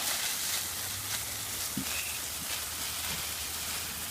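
Steady hiss of water from a garden hose spraying onto a smouldering brush fire.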